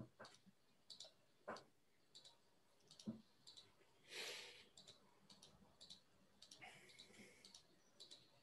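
Near silence with faint, irregular clicking, about one or two clicks a second, and a single short breath-like hiss about four seconds in.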